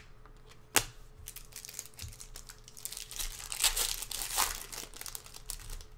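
Foil trading-card pack wrapper crinkling and tearing as it is pulled open by hand, after a couple of sharp clicks.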